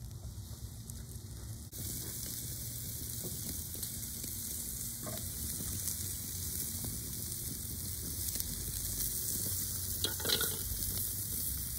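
Steaks sizzling on the grate of a charcoal grill, a steady hiss that comes up louder about two seconds in. A brief crackle sounds near the end.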